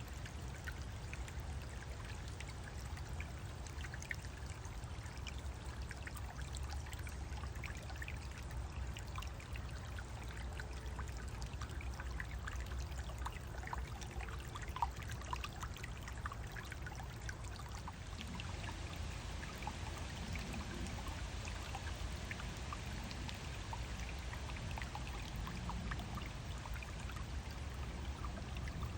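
A small woodland stream running and trickling over a little waterfall: steady water noise full of small splashes, over a steady low rumble. A single short tick stands out about fifteen seconds in.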